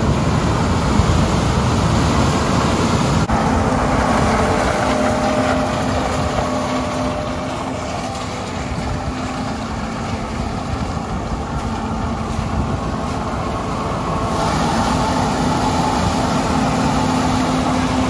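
John Deere combine harvesting corn close by, its engine and threshing machinery running steadily. It eases off a little in the middle and comes back louder for the last few seconds.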